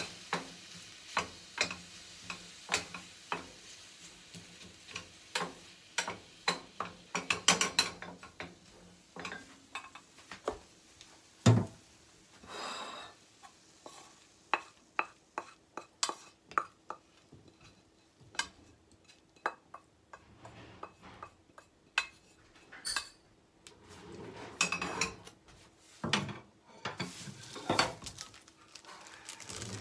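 Wooden spatula stirring, scraping and knocking against a small stainless steel saucepan of stir-fried turnip and cod roe, with a faint sizzle at first that dies away. Then the pan is tipped and scraped out onto a plate with a run of taps, one knock about a third of the way in being the loudest.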